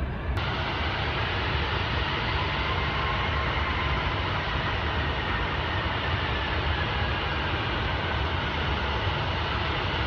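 Jet airliner engine noise: a steady rumble and hiss with a faint whine slowly falling in pitch as the aircraft passes.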